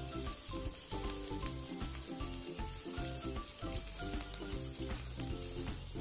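Oil sizzling steadily in a non-stick kadai as whole spices and slit green chillies fry, stirred with a wooden spatula. Soft background music plays underneath.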